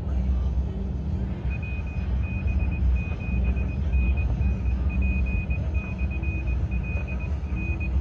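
Steady low rumble of a pickup truck's engine and tyres heard from inside the cab while driving on a highway. A thin high-pitched tone beeps in short, uneven dashes from about a second and a half in until near the end.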